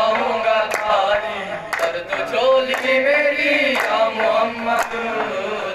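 Young male voices singing a qawwali, a lead voice with the group, unaccompanied but for hand clapping that keeps a steady beat of about one clap a second.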